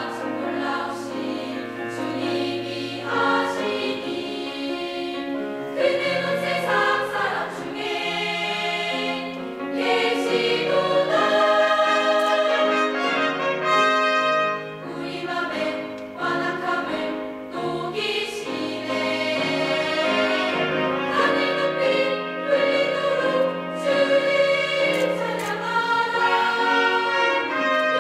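Girls' high-school choir singing a sacred piece in several parts, with instrumental accompaniment carrying a low bass line.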